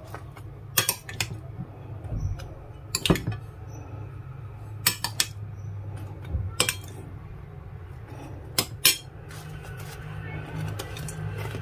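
Metal spoon clinking and scraping against a ceramic plate as chicken pieces are scooped into a bread roll: sharp clinks, often in pairs, every second or two.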